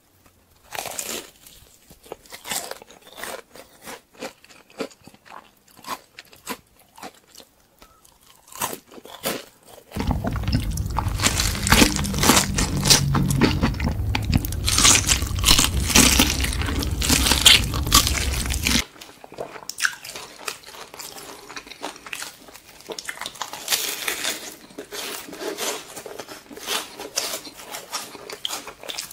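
Close-miked crunching and chewing of crispy fried chicken, crackly bite after bite. A louder middle stretch has a low hum under the crunches.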